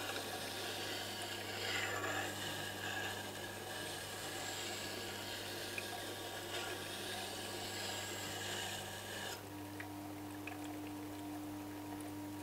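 Tormek T-8 wet sharpener running with a steady low hum while a spindle gouge in a jig is ground on its DE-250 extra-fine diamond wheel, a steady hiss of steel on the wheel. The grinding stops about nine seconds in, leaving the machine humming.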